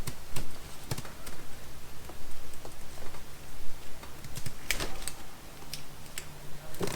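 Irregular light clicks and taps of small plastic parts and tools being handled, with a faint low hum in the last couple of seconds.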